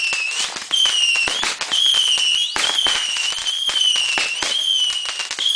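Fireworks going off: a high-pitched whistle that keeps cutting out and restarting, each stretch sliding slightly down in pitch, over a run of quick crackling pops.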